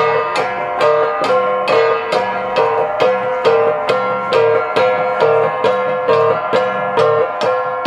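A Cordilleran gangsa ensemble of flat bronze gongs, struck by hand in a fast, even rhythm of about four ringing strikes a second, the gong tones overlapping into a continuous metallic shimmer.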